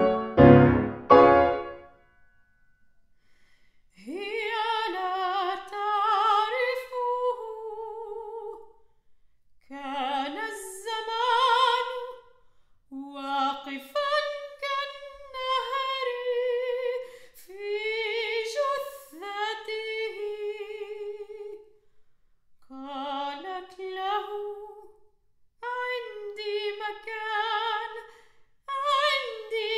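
Soprano voice singing slow, unaccompanied phrases with wide vibrato, separated by short pauses. A piano chord passage dies away about two seconds in, before the voice enters.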